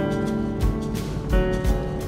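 Background music: sustained chords that change about every two-thirds of a second, over a steady drum beat.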